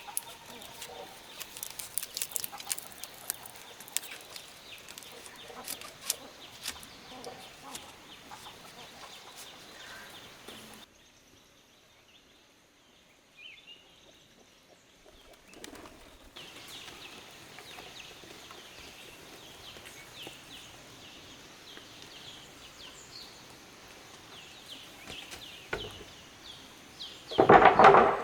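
Chickens around a farmyard, with scattered clicks and rustles of handwork and wing flapping. The sound drops almost to silence for a few seconds midway, and there is a loud burst near the end.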